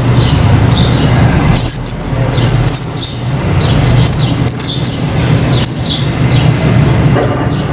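A steady low hum with birds chirping over it again and again, and a couple of brief rattling clicks about two and three seconds in.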